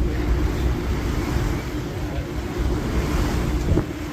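Wind buffeting the microphone on the deck of a tour boat, over the boat's engine humming steadily.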